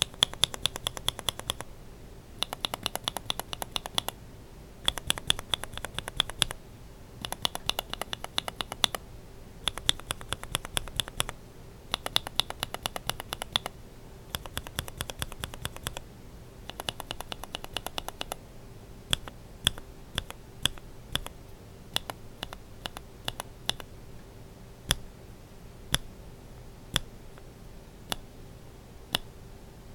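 Linear mechanical keyboard switches (Kailh Burgundy stem in BSUN Brown housing) being pressed and released. There are eight quick runs of rapid clicking presses, each about a second and a half long, then slow single presses about once a second near the end.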